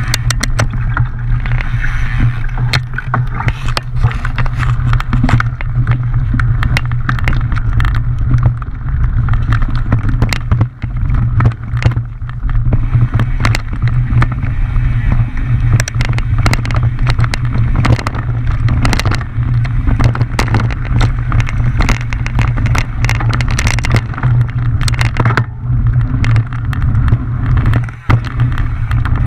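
Mountain bike riding fast downhill over a rough trail: a steady low rumble of wind and vibration on the microphone, with constant clicks, knocks and rattles from the bike over rocks and roots.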